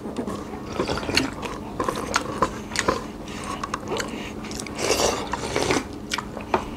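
Close-up eating sounds: chewing with wet mouth smacks and many small clicks, and a longer slurp of soup from a spoon about five seconds in.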